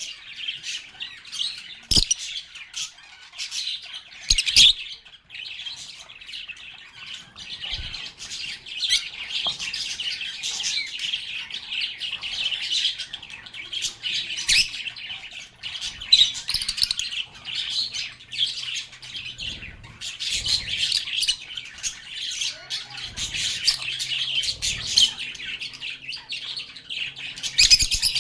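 Several pet lovebirds chattering and chirping continuously, with shrill squawks mixed in. A few sharp taps stand out above the chatter, the loudest about two and four and a half seconds in.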